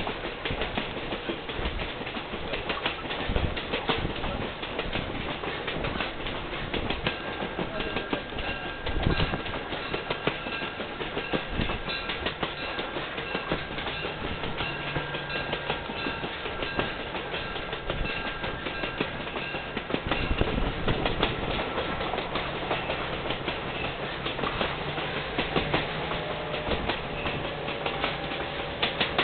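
Passenger railroad coach rolling along the track, heard from an open window: a steady rumble and rattle of wheels on rails with clickety-clack over the rail joints. A faint high steady whine runs through the middle stretch.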